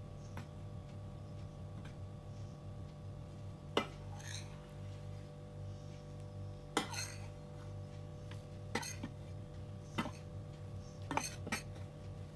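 Metal spoon clinking against a glass mixing bowl and plate as dry cake ingredients are spooned into the wet batter. A handful of separate taps come a second or more apart over a steady low hum.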